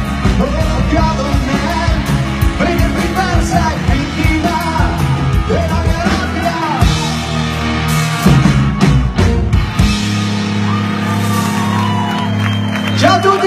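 Live rock band playing: a male singer over drums, electric guitars and bass. About ten seconds in, the drums and deep bass drop out and a held chord rings on under a falling sung line. A new sound starts near the end.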